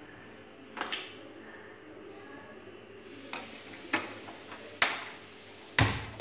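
Steel bowl being handled on a gas stove's burner grate: about five sharp metallic clinks and knocks with brief ringing. The heaviest, duller clunk comes near the end.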